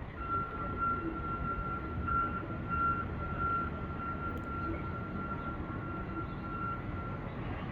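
Steady rumble of vehicle engines and traffic noise in deep snow. A thin, steady high-pitched whine runs over it for about seven seconds, then stops shortly before the end.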